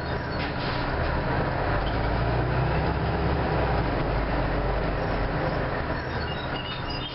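Orion V diesel city bus under way, heard from inside the cabin: a steady low engine drone over road rumble, swelling a little in the middle. Faint high squeaks come in near the end.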